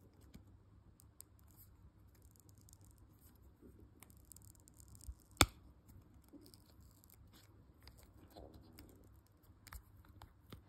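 Quiet scratching and small clicks of fingers handling a silicone resin mold, with one sharp click about halfway through.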